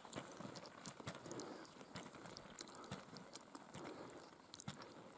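Skis sliding uphill through snow and ski poles planting, giving an uneven series of soft crunches and clicks.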